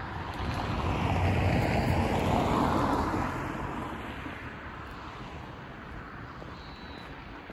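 A car passing on the adjacent road: its tyre and engine noise swells over about a second, holds for two seconds, then fades away as it drives off.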